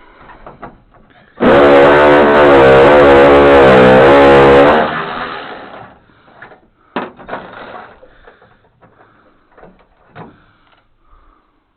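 A short, very loud burst of music, a guitar-like sting with a wavering pitch, lasting about three seconds and then dying away. Faint knocks and rustling come before and after it.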